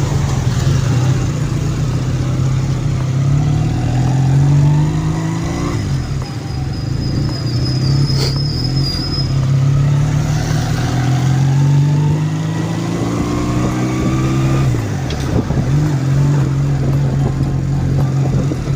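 1981 Honda CD200 Roadmaster's air-cooled parallel-twin engine accelerating through the gears: the engine note climbs in each gear and drops at the shifts about six and fifteen seconds in.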